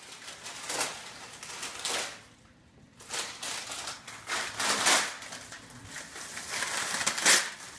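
Brown wrapping paper rustling and crinkling in irregular bursts as a present is unwrapped by hand, with the loudest crackle near the end.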